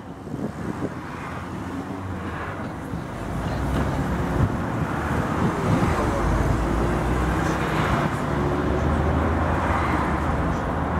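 Tatra T3M tram approaching on street track, getting louder about three seconds in and then holding steady, with road traffic behind it.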